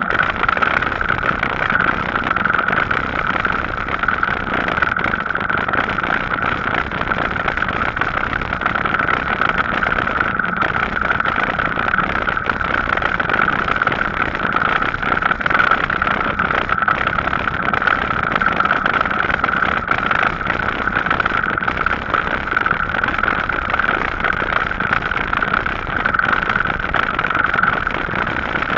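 Steady riding noise from an e-bike on the move: tyres rolling on the path and air rushing past, with a constant mid-pitched hum throughout.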